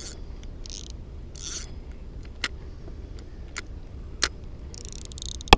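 Clicks and short scraping rustles from a spinning rod and reel being handled, over a low steady rumble, with a louder click near the end.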